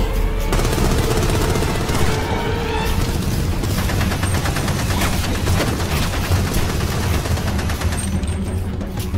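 Rapid automatic gunfire from a submachine gun, many shots a second and sustained for several seconds, over a low music score.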